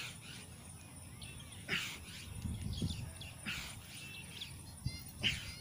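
A man's forceful, hissing breaths, one about every second and a half to two seconds, in rhythm with fast push-ups.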